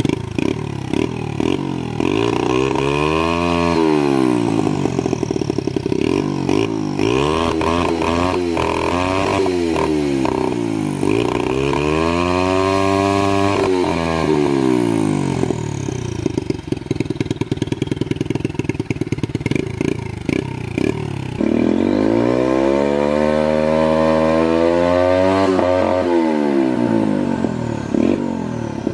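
Turbocharged Loncin pitbike single-cylinder four-stroke engine being revved up and down several times, with a longer rev held near the end. The revs stutter at the top of the blips as the ignition cuts, which the owner calls launch control.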